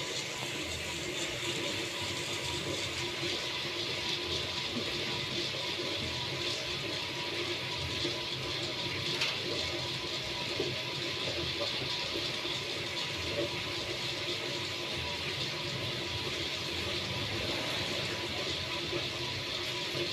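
Steady, even hiss like sizzling from a small popcorn machine's pan, with a faint constant hum under it.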